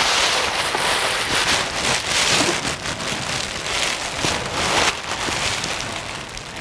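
Thin clear plastic bag rustling and crinkling as it is handled close by, a dense crackle of many small sharp crackles that eases off near the end.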